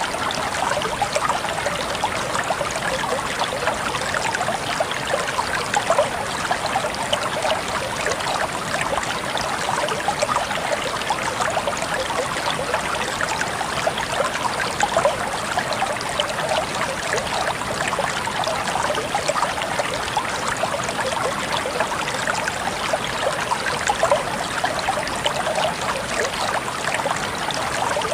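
Small waterfall or cascade running steadily, water splashing and burbling over rocks.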